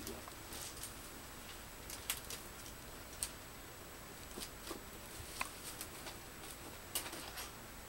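Faint, scattered rustles and light knocks of a flat package being handled and slid onto a high shelf.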